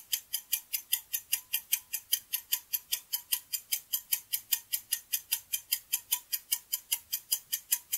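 Quiz countdown-timer sound effect: a clock ticking fast and evenly, about five ticks a second.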